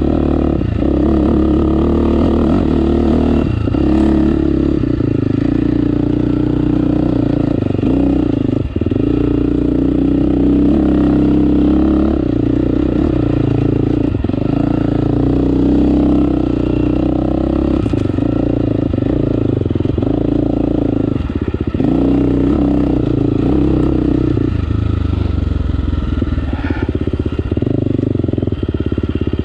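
2018 KTM 350 XC-F dirt bike's single-cylinder four-stroke engine running under load while riding up a rocky dirt track, the throttle chopped briefly several times. It settles to a lower, steadier note in the last few seconds.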